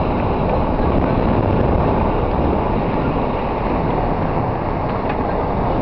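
Steady rush of wind on the microphone over a car's running engine and tyre noise, recorded from a moving car.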